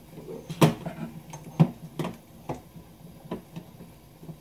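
Sharp, irregular clicks and knocks at the stove, about five of them, over a steady low hum, as sweet-and-sour sauce is brought to the boil in a frying pan.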